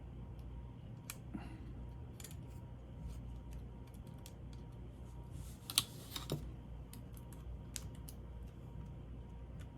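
Scattered light clicks and ticks from small laptop parts and screws being handled and fitted during reassembly, with a louder cluster of clicks about six seconds in. A steady low hum runs underneath.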